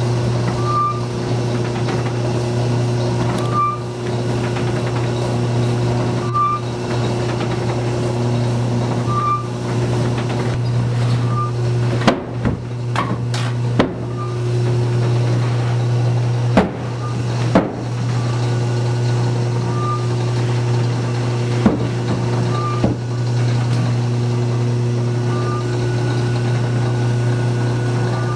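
Flour mill machinery running, with the wooden bolter turning: a steady low hum, a short light tick about every three seconds as the cylinder goes round, and a few sharp wooden knocks and clicks in the middle stretch.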